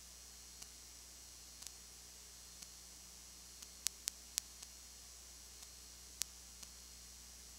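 Steady recording hiss and low electrical hum, broken by scattered sharp clicks, a cluster of three about four seconds in and another near six seconds. No game or crowd sound stands out.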